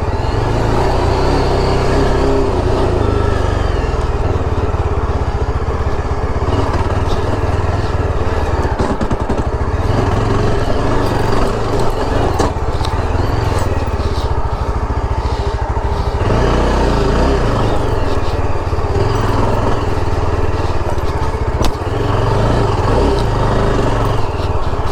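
Motorcycle running under way while being ridden, its engine sound mixed with a heavy, steady wind rumble on the microphone.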